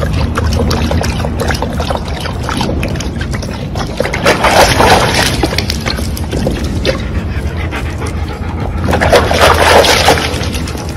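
Water slopping and splashing in a plastic bucket as German Shepherds lap and bite at it, with dense wet clicks and two louder bouts of splashing about four and nine seconds in, over a steady low hum.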